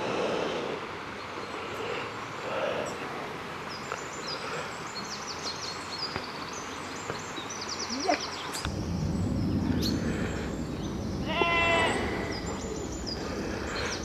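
Stream water rushing with small birds chirping high above it. About two-thirds of the way through the water sound cuts off and a lower background takes over, and a sheep bleats once, briefly, near the end.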